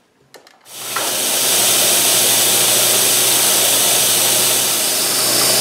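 Milling machine switched on after a couple of faint clicks, then running steadily: a low even hum under a loud steady hiss from the nozzle blowing at the end mill.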